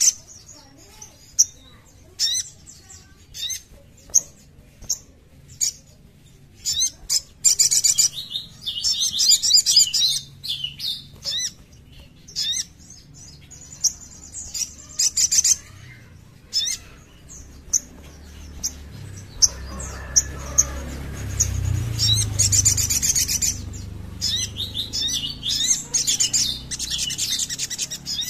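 Sunbird singing in bursts of rapid, high-pitched chirps and trills, separated by single sharp chips. A low rumble sits in the background for a few seconds about two-thirds of the way through.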